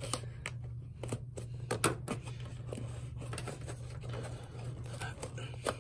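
A pen tip poking and scraping through a paper seal sticker on a cardboard box, then hands handling the cardboard: a string of irregular light clicks and taps.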